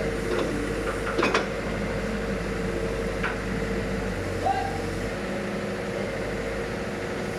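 Steady mechanical hum of road-construction work, with a sharp knock a little over a second in.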